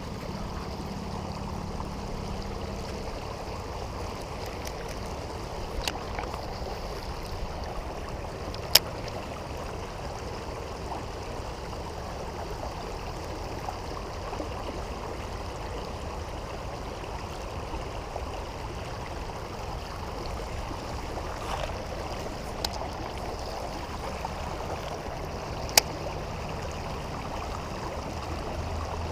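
Shallow river current running steadily over rocks, with two sharp clicks, about a third of the way in and near the end.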